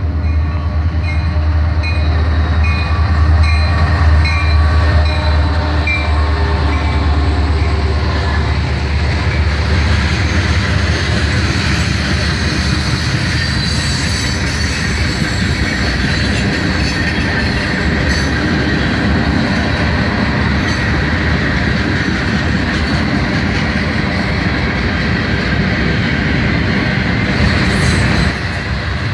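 A freight train led by a Norfolk Southern SD60 diesel locomotive rumbling past, with a bell ringing at an even pace through the first several seconds. Then covered hopper cars roll by, their wheels clattering on the rails with a high squeal.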